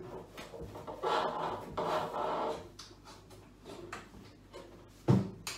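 Household handling noise: a couple of rubbing, scraping sounds, then a single sharp thump near the end.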